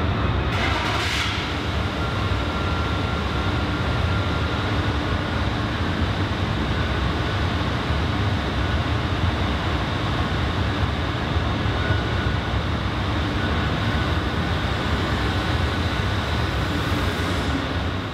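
Steady low machinery rumble on an enclosed ferry car deck, with a faint steady hum over it, as a car rolls slowly forward; a short hiss about a second in.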